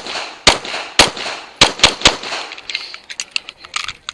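9mm service pistol firing six shots over about two seconds, the last three close together, followed by a scatter of lighter clicks and rattles.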